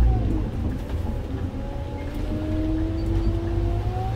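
Scania OmniLink bus's biodiesel engine and driveline, heard from inside the bus while it drives. The deep engine rumble eases off at the start and comes back near the end, while a whine drops and then slowly rises in pitch.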